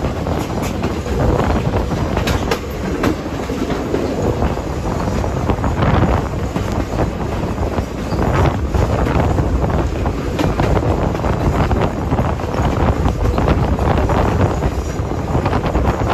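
Passenger train rolling along the track, heard from an open-air car: a steady rumble of the wheels with irregular clicks as they cross rail joints.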